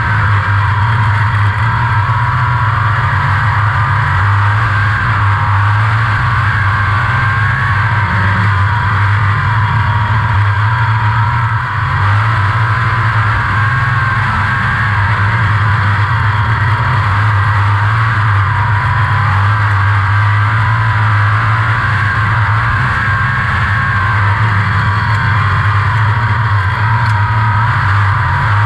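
360 sprint car's small-block V8 running hard at racing speed, heard from the cockpit, a loud, steady drone with a brief dip about twelve seconds in.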